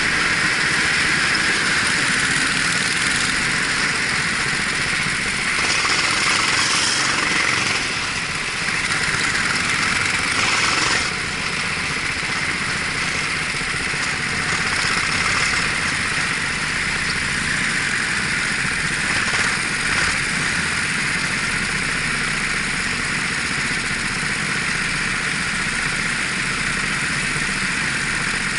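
Racing kart engine running steadily while the kart is under way, heard from the driver's helmet-mounted camera, with a small drop in loudness about eleven seconds in.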